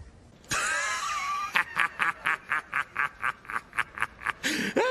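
A man laughing hard in quick, regular bursts, about five a second, starting about a second and a half in.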